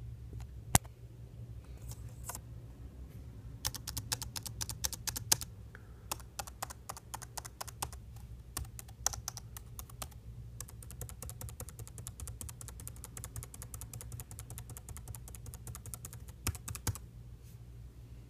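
Typing on a computer keyboard: one sharp keystroke about a second in, then runs of fast keystrokes from about four seconds in, becoming a dense continuous stream in the middle, with a couple of louder strokes near the end. A steady low hum runs underneath.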